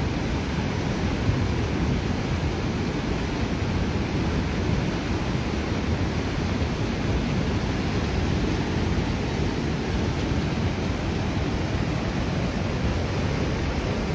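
Swat River in heavy flood: muddy floodwater rushing and churning against a washed-out road bank, a steady, dense rushing noise with no let-up.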